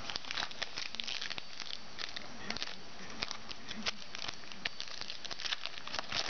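Foil trading-card pack wrapper crinkling and cards being handled: a steady run of small irregular crackles and rustles.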